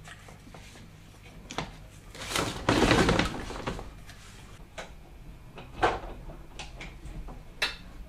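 Handling noises of a plastic aquarium sump pump being fitted back into a sump cabinet: scattered clicks and knocks, with a longer, louder rustle about two and a half seconds in.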